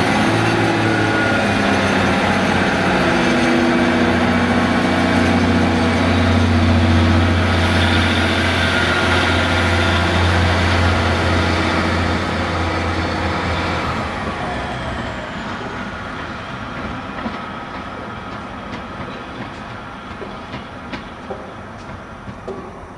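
Diesel engines of a Class 150 Sprinter multiple unit running under power as it pulls away, a steady drone that fades after about fourteen seconds as the train draws off. A few faint clicks of wheels over rail joints near the end.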